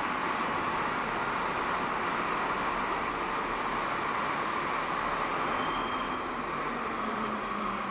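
Rubber-tyred metro train running along the platform with a steady rushing noise. Thin, high whistling tones join in about six seconds in.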